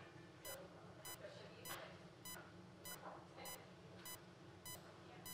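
Bedside patient monitor giving its heartbeat tone: short, quiet pitched beeps, about one every 0.6 seconds (near 100 a minute), each marking a heartbeat.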